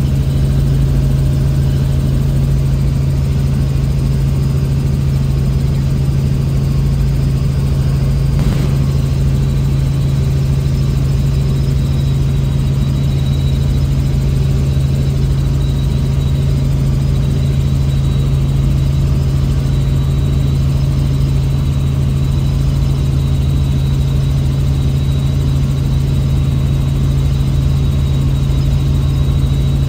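Helicopter in flight heard from inside the cabin: a loud, steady engine-and-rotor drone with a low hum and a faint high whine above it.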